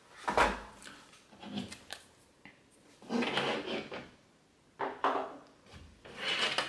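Hands handling a smartwatch and its packaging on a tabletop, with rustling and scraping in about five short bursts separated by brief quiet gaps.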